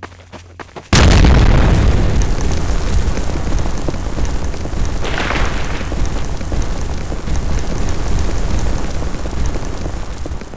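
Explosion sound effect: a sudden loud blast about a second in, followed by a long, dense, noisy rumble with a heavy low end. It swells again around the middle and slowly fades over several seconds.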